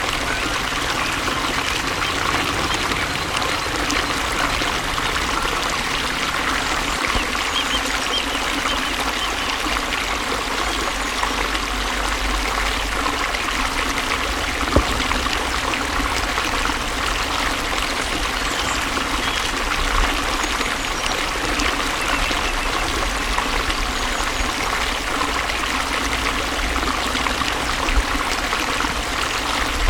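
Water flowing steadily, a continuous stream with trickling and splashing and no pauses.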